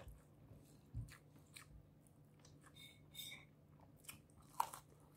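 Close-up mouth sounds of a person chewing spiced rice and shrimp, with scattered soft wet clicks and one sharp crunchy bite about four and a half seconds in.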